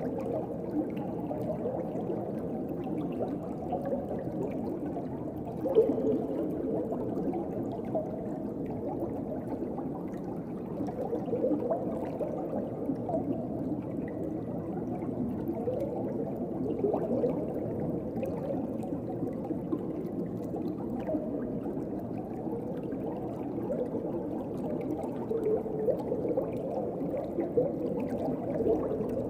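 Muffled underwater ambience: a steady low rush and gurgle of water, with small swells every few seconds.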